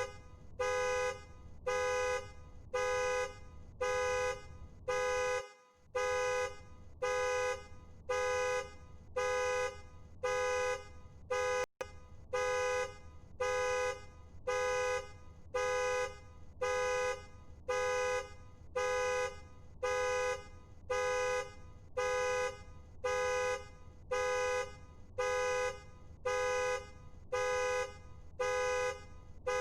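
Car alarm sounding the car's two-tone horn in steady, even honks, about one a second.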